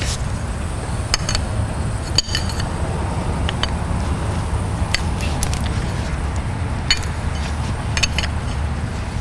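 Light metallic clinks of a 1-inch AN wrench working a braided-hose AN fitting on a thermostat housing, scattered irregularly about once a second, over a steady low hum.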